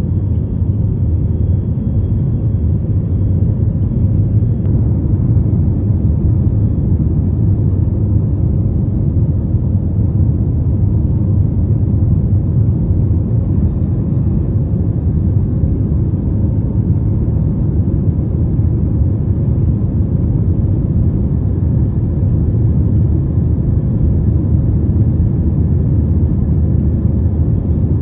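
Steady low rumble of an airliner's engines and airflow heard from inside the passenger cabin, even and unchanging throughout.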